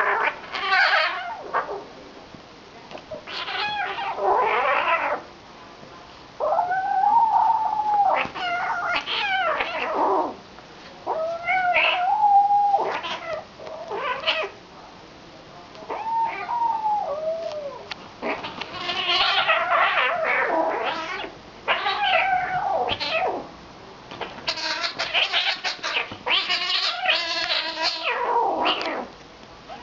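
A six-week-old kitten yowling and caterwauling again and again during a play-fight with an older kitten. The cries come in quick runs with short pauses, some drawn out with a wavering pitch.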